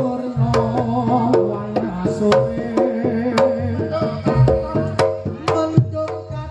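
Reog Ponorogo gamelan music: a rapid, regular pattern of drum strokes and struck metal beats over sustained pitched tones.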